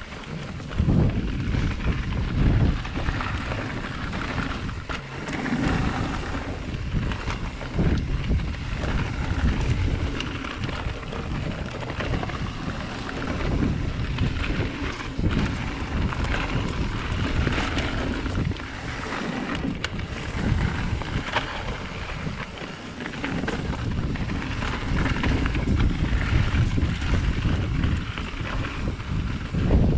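Wind buffeting the microphone over the rumble of mountain bike tyres rolling on a dirt singletrack, with irregular knocks and rattles as the bike runs over bumps.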